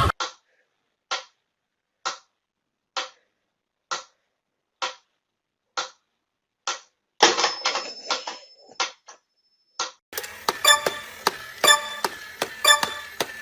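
Regular sharp ticks, about one a second, with dead silence between. A few seconds before the end they give way to a busier run of clicks and knocks with faint tones under them.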